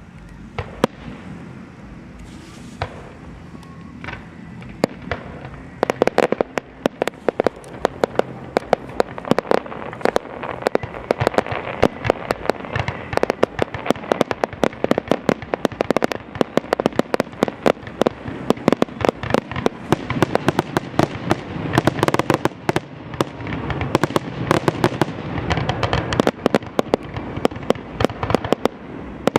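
Fireworks display: a few separate bangs at first, then from about six seconds in a dense, rapid barrage of bangs and crackles.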